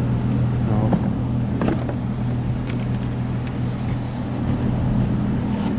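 A steady low mechanical hum, with a few light clicks and taps from hands handling small parts.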